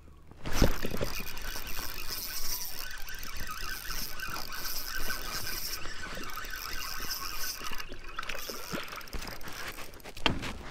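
Spinning reel cranked fast, its gears whirring, as a small hooked fish is reeled in to the kayak, with splashing at the surface. A sharp thump comes about half a second in, and another near the end.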